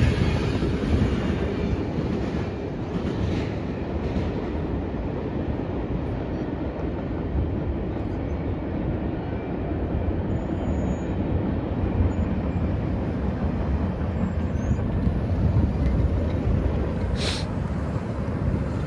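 Freight train rolling past, a steady rumble of steel wheels on rail and railcars, with a brief high, sharp screech near the end.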